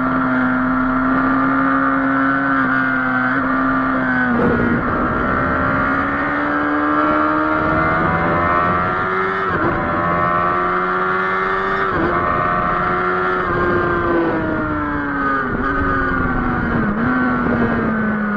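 Onboard sound of a Kawasaki sport bike's engine at full throttle on track: the note holds steady, then climbs through several upshifts, each a short dip in pitch, and falls back in steps near the end as the bike slows and shifts down.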